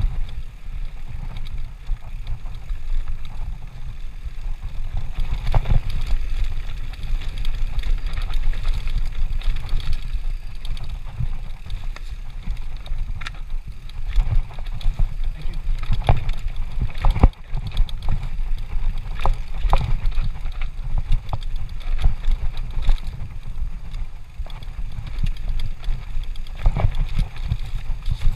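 Mountain bike riding downhill on a dirt singletrack: a steady low rumble of wind on the microphone and tyres on dirt, broken by scattered clicks and rattles from the bike jolting over bumps.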